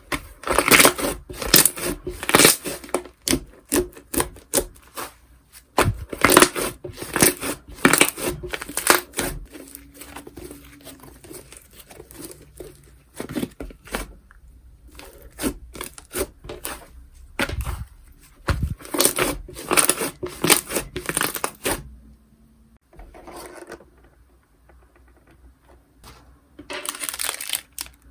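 Slime being pressed, poked and stretched by hand, giving dense runs of sharp crackling clicks in bursts with short pauses between.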